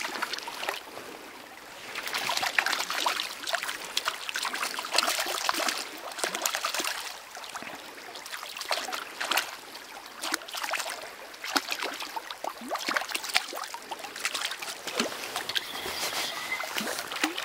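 Shallow river water trickling and splashing as a hooked trout is played in close. Irregular crackles and clicks run through it, with rustling of a sleeve close to the microphone near the end.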